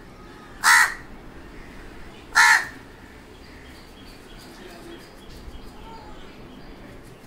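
Crow cawing twice: two short, loud caws about a second and a half apart.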